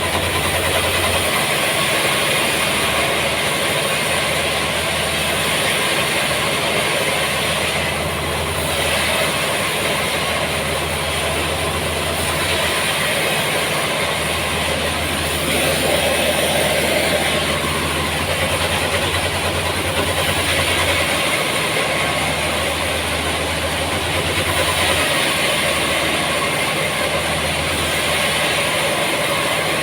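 Sawmill machinery running continuously, a loud steady mechanical noise with a low hum that strengthens and weakens every few seconds.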